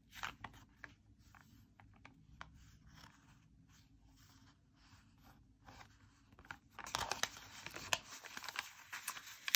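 Paper sticker sheet handled by fingers: small papery rustles and light ticks, with denser, louder rustling from about seven seconds in.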